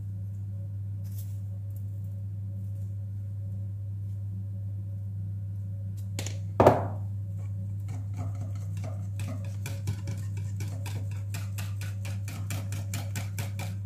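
A wire whisk beating thin flour batter in a ceramic bowl, its wires clicking quickly against the bowl at about four strokes a second from about eight seconds in. A single loud knock about six and a half seconds in, under a steady low hum.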